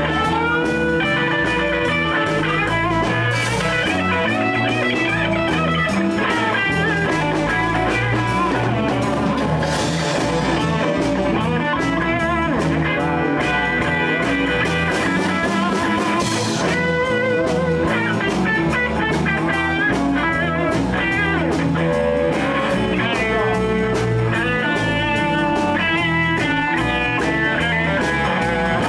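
Live blues band playing: electric guitar, bass and drum kit, with a lead line of bent, wavering notes and a few cymbal crashes.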